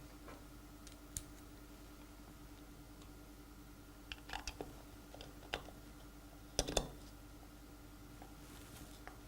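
Scattered light clicks and taps of small metal parts, a Torx screwdriver and screws against the vacuum block, as the new adapter ring is fitted and screwed on. The loudest is a quick double click about two-thirds of the way through, over a faint steady hum.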